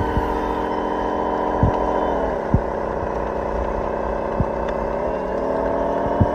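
RC model Caterpillar D11T bulldozer running with a steady droning tone that drops in pitch about two seconds in and climbs back up a few seconds later, with a few sharp clicks scattered through it.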